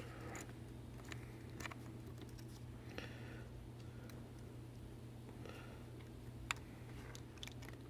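Faint small clicks and light scraping from tweezers working small parts inside an opened iPhone 7, with one sharper click about six and a half seconds in, over a steady low hum.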